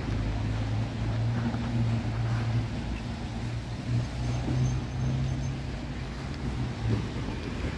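A motor vehicle's engine running with a steady low hum over a background hiss of street noise.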